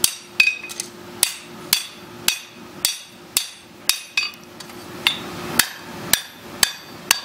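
Blacksmith's hand hammer striking a forge-welded ring over the anvil horn, about two blows a second, each with a short metallic ring, truing the ring round.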